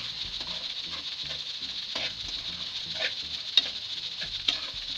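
A metal spoon stirs and scrapes thick chicken masala around a metal pan while it fries gently on very low heat, with a faint steady sizzle. Several sharp clicks come from the spoon striking the pan.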